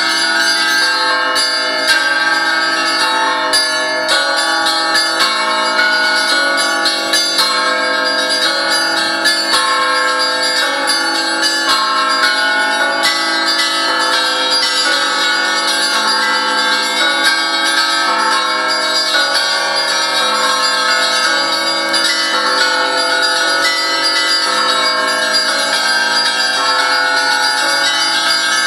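Russian Orthodox church bells ringing a continuous peal: many quick, overlapping strikes of smaller bells over the steady, sustained ringing of deeper bells.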